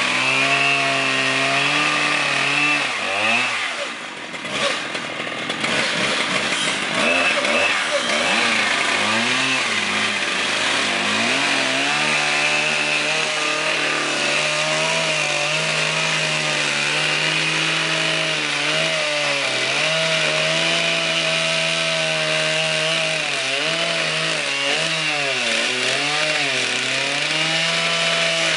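Two Husqvarna 3120 XP two-stroke chainsaw engines running hard together on one six-foot bar, cutting through a tree trunk. The engine note sags briefly about four seconds in, then wavers up and down repeatedly as the bar loads in the cut.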